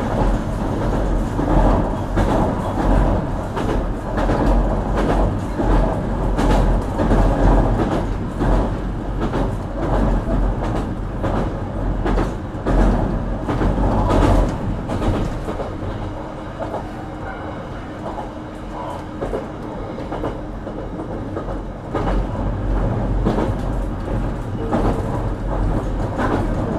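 Running noise of a JR Kyushu BEC819 series DENCHA battery-electric train heard inside the passenger car: a steady rumble with wheels clacking over rail joints. It eases off for several seconds past the middle, then picks up again near the end.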